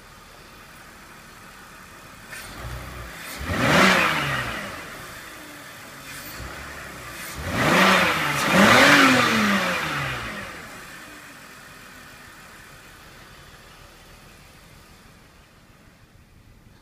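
A 2002 BMW 525i's inline-six, with 225,000 miles on it, idling and then revved twice. A single blip comes about four seconds in, and a quick double blip at around eight to nine seconds, each climbing and falling back before the engine settles to a smooth idle.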